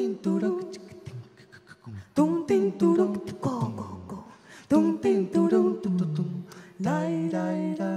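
Unaccompanied singing voice: short sung and hummed phrases with sliding pitch, no piano underneath.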